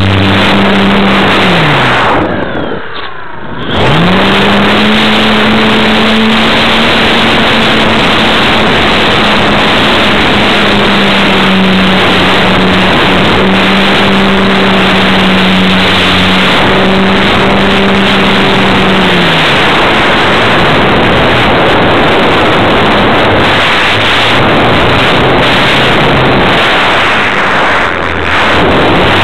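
Wind noise over the onboard microphone of a radio-controlled model plane, with the plane's motor whining beneath it. The motor's pitch drops and fades out about two seconds in, rises back a couple of seconds later and holds steady, then falls away again about twenty seconds in.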